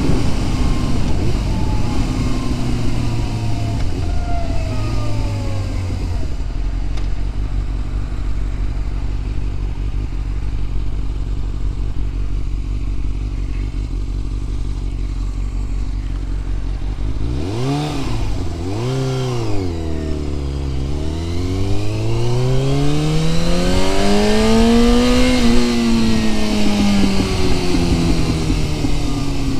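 1997 Yamaha YZF600R's inline-four engine heard from the rider's seat. It winds down in steps as the bike slows, then idles steadily for about ten seconds. A little past halfway it revs hard and pulls away, the pitch rising and dropping twice in quick gear changes, then climbing for several seconds before the next shift.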